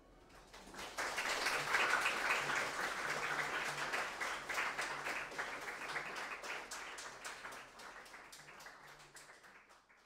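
Audience applause that swells about a second in, then slowly dies away and cuts off abruptly at the end.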